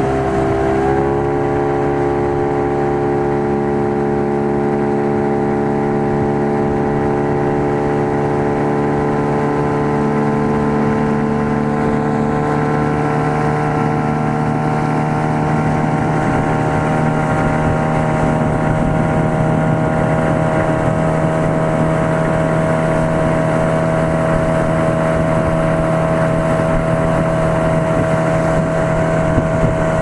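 Outboard motor running under way on an aluminium motorboat, with water rushing along the hull. Its pitch dips briefly about a second in, then creeps slowly up.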